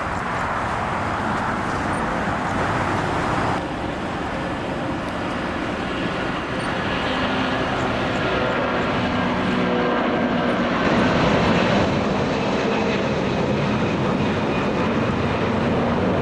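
Jet airliner engines running, a steady rush with a faint whine in it that swells slightly about eleven seconds in.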